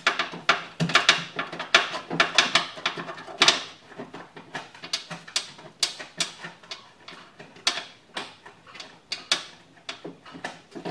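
Quick, irregular metallic clicks and rattles of a wrench and mounting hardware as the side-mirror nuts are worked loose inside a car door. They come thickest in the first few seconds and thin out after.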